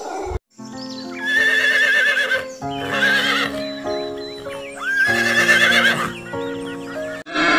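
Horse whinnying three times, each a wavering high call of about a second, over background music with sustained notes.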